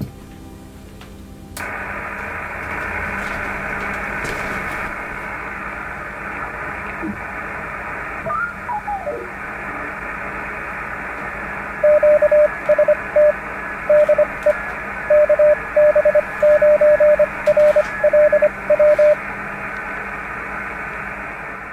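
Shortwave receiver hiss from an ICOM IC-745 HF transceiver on 40-metre lower sideband. The hiss comes on suddenly about a second and a half in. A single whistle falls in pitch as the dial is tuned across a signal. Then a loud, steady-pitched Morse code tone is keyed on and off for about seven seconds over the hiss.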